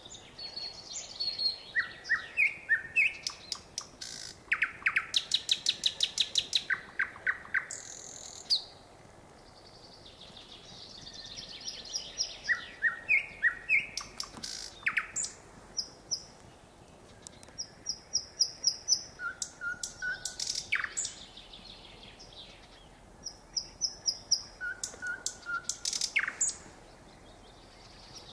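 A nightingale singing: phrases of fast repeated clicking and rattling notes mixed with short clear whistles, each a few seconds long, with brief pauses between phrases.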